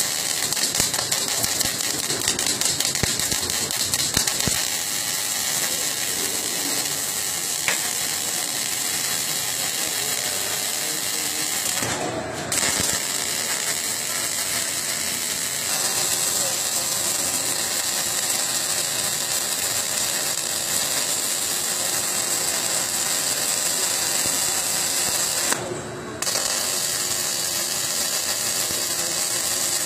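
Robotic arc welding: a welding robot's torch arc crackling steadily on metal plate, cutting out briefly twice, near the middle and near the end.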